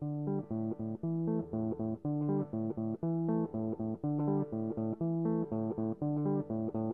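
Background music: a steady run of short, evenly paced notes over a low bass line.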